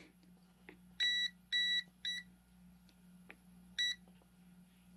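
VENLAB VM-600A digital multimeter's non-contact voltage detector beeping: four short, high-pitched beeps, unevenly spaced. The beeps warn that a live conductor is near the meter's tip.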